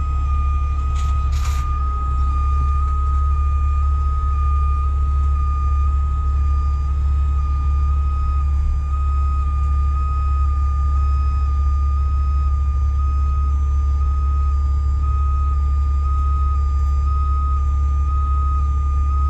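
Heavy rotator tow truck's diesel engine running steadily while its hydraulics lift a semi tractor, with a steady high whine over the low engine rumble. Two short clicks about a second in.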